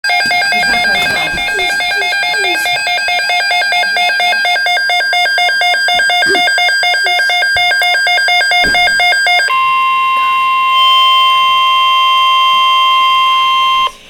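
Weather alert radio sounding a hurricane watch alert: a rapid, pulsing electronic beep alarm for about nine and a half seconds, then a steady single high alarm tone, the NOAA Weather Radio warning tone that heralds the broadcast alert message. The tone cuts off suddenly near the end.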